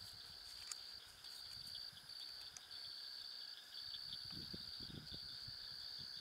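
Crickets trilling steadily in a high pitch, the trill breaking off briefly every second or so, with faint low rustling about four to five seconds in.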